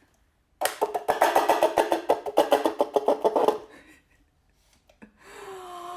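Homemade chicken-sound cup: a wet paper towel is pulled down the yarn threaded through the cup's bottom in short strokes, making the string squawk in a rapid run of clucking pulses that the cup amplifies, for about three seconds.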